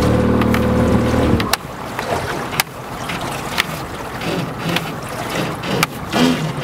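Crab ring rope being hauled up hand over hand over the side of an aluminum boat, with sharp knocks roughly once a second over wind and water noise. A steady low hum stops about a second and a half in.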